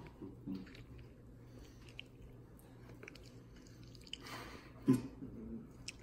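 Mouth sounds of people chewing pizza fast, with soft wet clicks. A short vocal sound about five seconds in is the loudest moment.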